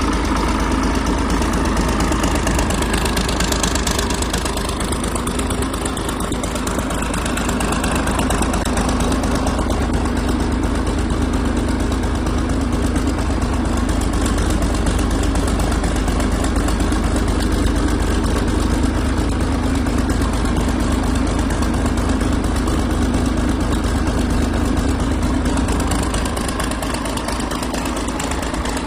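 Yanmar 6CX-ET six-cylinder marine diesel engine running steadily.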